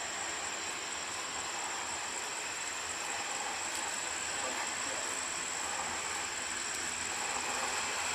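Jet aircraft engines running steadily at a distance: an even hiss with a thin, steady high whine over it.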